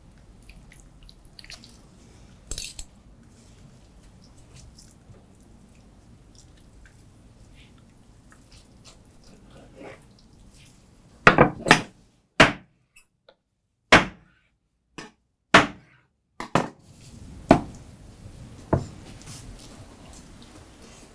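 A knife and fork working through smoked sturgeon flesh on a wooden cutting board, with faint soft wet sounds. About halfway through comes a series of roughly eight sharp clicks and knocks, spaced a second or so apart.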